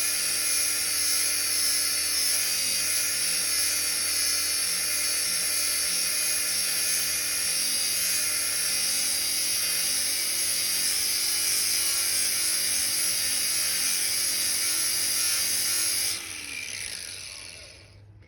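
Electric grinder running at full speed with a steady high whine and hiss while grinding a drum mulcher's teeth. About 16 s in it is switched off, and its pitch falls away as it spins down.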